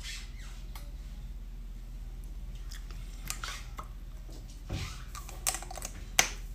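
Quiet handling of a Dior Lip Glow lip balm stick: a few soft clicks and rubs, then a sharp click just after six seconds as the cap goes back on, over a steady low hum.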